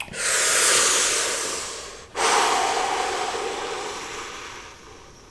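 Two long, noisy breaths close to the microphone, the second starting abruptly and fading away slowly.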